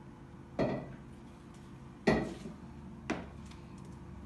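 Three short knocks of kitchen bowls being set down and handled on a counter, the second one the loudest.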